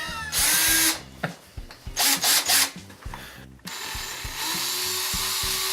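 Adhesive tape pulled off the roll in two quick screeching strips, then a small power tool's motor starts about two thirds of the way in and runs steadily, over a faint background music beat.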